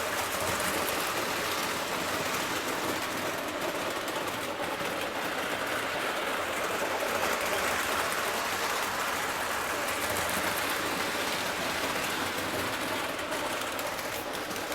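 Lionel O-gauge B&O Camelback model steam locomotive running around the layout, a steady even mechanical noise from its motor and wheels on the track, easing off slightly near the end.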